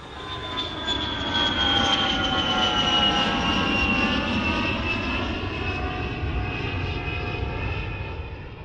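Airplane flying past, its engine's whine sliding slowly down in pitch over a steady rumble; it swells up over the first couple of seconds and fades toward the end.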